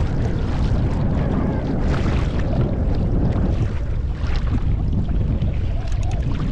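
Strong wind buffeting the microphone, a steady low rumble, with ocean chop splashing against a kayak now and then.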